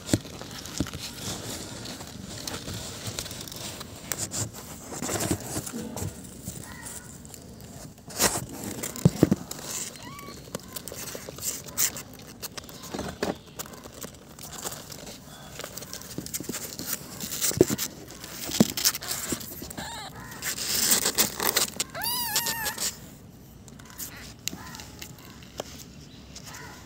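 Rustling, scraping and clicking as newborn kittens and their mother cat shift about in a cardboard box, with a short wavering cry near the end.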